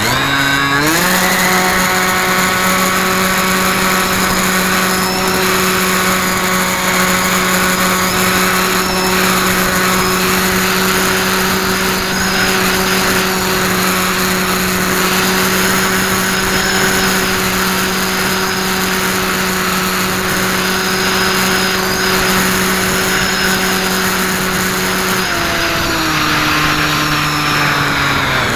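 Radio-controlled model airplane's motor and propeller heard from the camera on board: the pitch jumps up in the first second as the throttle opens, holds a steady drone, then drops in two steps near the end as the throttle is eased back.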